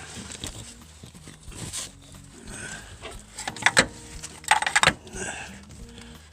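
Metal tools and fittings clinking and rattling against each other, with two clusters of sharp clicks a little past the middle.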